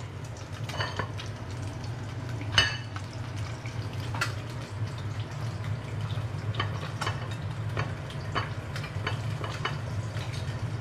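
Plastic spatula scraping and tapping on a wooden cutting board as diced fried potatoes are scooped up, a scattering of light scrapes with one sharper knock about two and a half seconds in, over a steady low hum.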